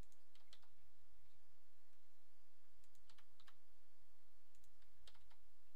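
A few scattered light clicks of computer keys and mouse buttons, over a steady low hum.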